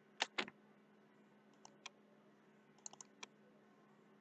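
Computer mouse clicking: a loud double click just after the start, then a few fainter clicks, in a pair and then a short cluster, over a faint steady hum.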